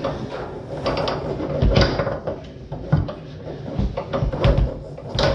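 Tornado foosball table in play: the ball knocking against the men, and the rods sliding and clacking, in an irregular run of sharp knocks and rattles.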